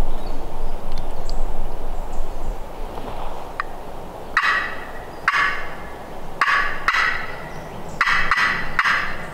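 Wild turkey gobblers gobbling: about six short, raspy gobbles in quick succession, starting about four and a half seconds in, over steady wind noise on the microphone.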